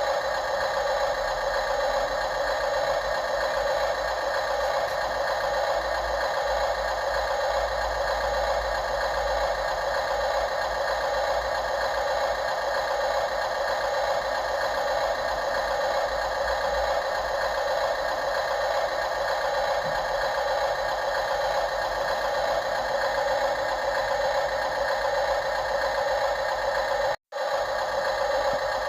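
Small electric motors and gearboxes of radio-controlled construction machines whirring steadily with a rattle. The sound cuts out for a split second near the end, then resumes unchanged.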